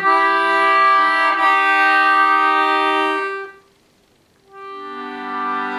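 Concertina playing sustained chords as the closing bars of a song. The chords stop about three and a half seconds in, and after a brief gap another chord swells in near the end.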